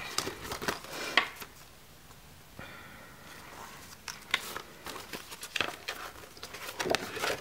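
Paper pages of a spiral-bound desk calendar being flipped over and handled: a series of short rustles and taps, with a quieter stretch in the middle.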